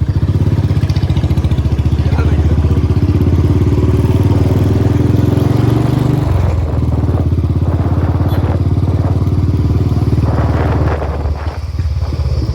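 Royal Enfield Bullet's single-cylinder engine running under way, its exhaust a steady, evenly pulsing low note. The pitch shifts about six seconds in and the engine eases off briefly near the end.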